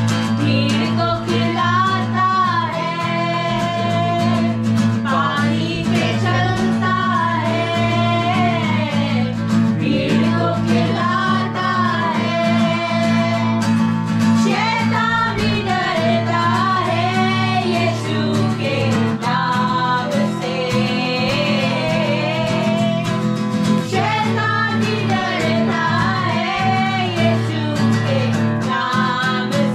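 Singing accompanied by an acoustic guitar, performed live.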